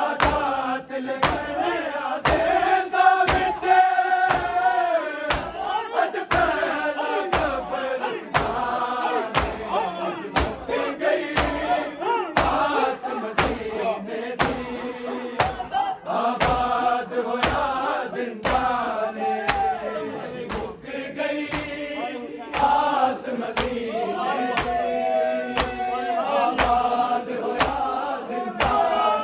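A group of men chanting a noha, a Shia lament, in unison, with a steady beat of chest-slaps (matam) about twice a second.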